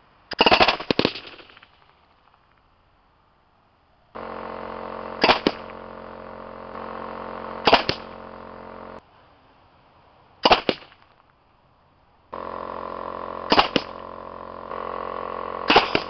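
Homemade pneumatic golf ball cannon with a piston valve firing semi-automatically, each shot a sharp bang. A quick burst of about three shots comes near the start, then single shots follow every two to three seconds. A steady hum with several held tones runs under the later shots.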